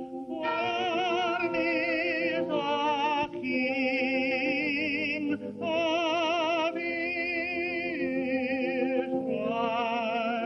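Soundtrack music: a slow melody of long held notes with heavy vibrato over sustained lower chords, with brief breaks between phrases.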